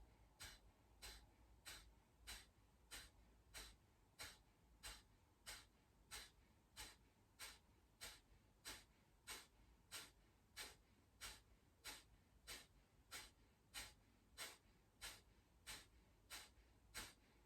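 Kapalbhati (skull shining breath): a steady run of rapid, forceful exhalations through the nose, about one and a half short sharp puffs a second, with quiet passive inhales between. Faint.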